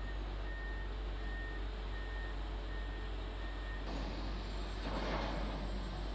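Heavy construction machine running, its reversing alarm giving a high single-tone beep about six times, roughly every 0.7 s. The beeping stops a little after three seconds in, and just before four seconds the machine's noise turns louder and brighter, swelling in waves.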